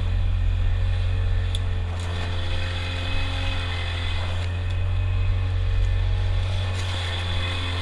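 Outboard motor of a small open fishing boat running steadily under way, a low even drone, with water washing along the hull.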